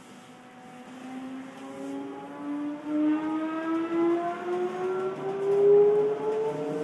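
Odakyu 1000-series electric train accelerating away from the station, heard from inside the car: the traction motors and inverter give a whine with several tones that rises steadily in pitch and grows louder as the train picks up speed.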